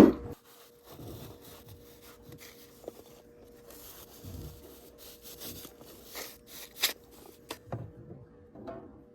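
Scraping and scattered light knocks of debris that fell from the turbulators being cleaned out of the bottom of an outdoor wood boiler, starting with a loud knock. A faint steady hum runs underneath.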